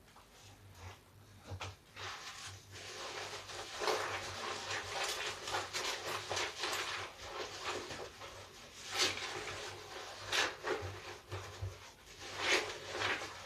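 A large bath sponge full of soap lather and soap scraps being squeezed and kneaded by hand: a run of wet, irregular squeezes and rubs, several of them louder.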